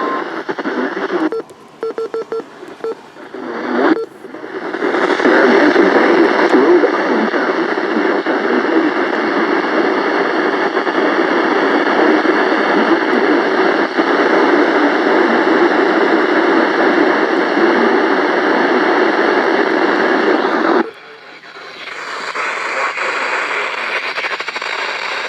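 Weather radio receiver hissing with static while tuned to a weak or empty channel, after a few seconds of choppy, broken tuning noise with short tones. The static drops sharply about 21 seconds in, then comes back quieter.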